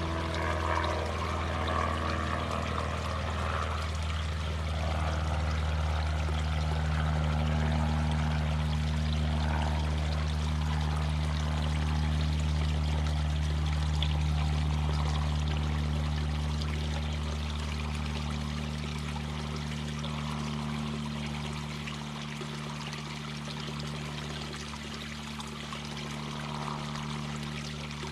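Mountain brook babbling and trickling over rocks, with a low steady drone underneath that fades about three-quarters of the way through.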